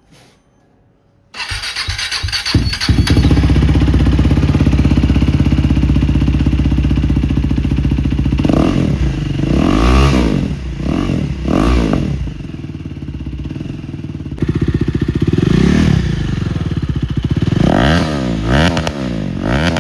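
KTM RC390's 373 cc single-cylinder engine, fitted with an aftermarket Austin Racing replica exhaust, starts about a second and a half in and settles to idle. It is then blipped up and down several times in quick revs, with more revs near the end.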